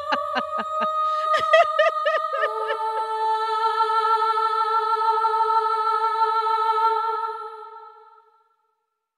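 Closing theme music: a quick run of short, repeated pitched notes gives way to a held chord that fades out about eight seconds in.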